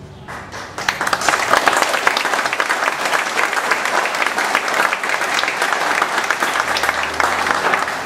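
Audience applauding at the end of a string orchestra piece: the clapping builds up within the first second and then carries on steadily.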